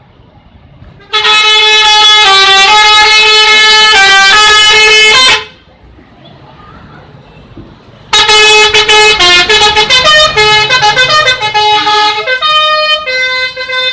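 Bus 'telolet' horn: a loud multi-tone musical air horn playing a melody of stepped notes. It sounds in two runs: about four seconds of held, changing chords starting about a second in, then after a short pause a longer run of quicker note changes from about eight seconds in.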